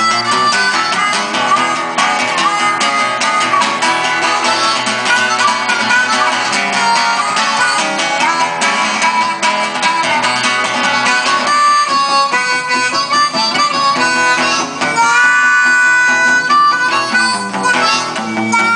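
Blues harmonica solo, played cupped against a microphone, over guitar accompaniment. From about fifteen seconds in the harmonica holds long, steady notes.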